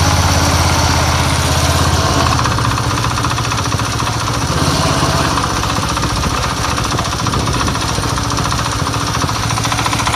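Engine running with a fast, rattling knock. The low part of the engine sound eases off about two seconds in, with the knock still present, which fits the throttle being let off. The owner takes the knock, which he says comes when the throttle is dropped and goes away under a little gas, for worn bearings after the engine cover shifted.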